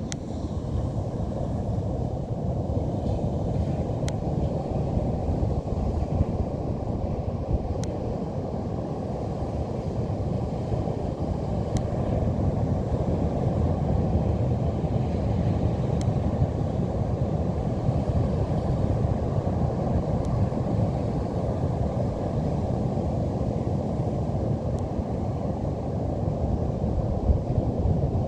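Steady low rumble of Pacific Ocean surf mixed with wind on the microphone, with no breaks.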